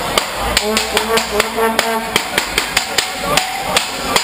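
A steady rhythm of sharp knocks or drumbeats, about four a second, with a raised voice calling out over the crowd in the first two seconds.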